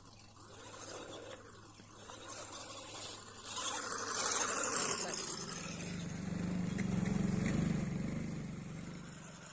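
A motor running with a low hum, swelling about three seconds in and fading near the end.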